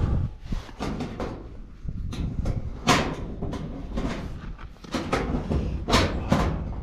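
Corrugated steel door of a tin shack knocking and rattling as a cloth strip is pulled tight and tied to a wire loop to bind it shut, with rustling of the fabric. The loudest knocks come about three seconds in and twice near six seconds.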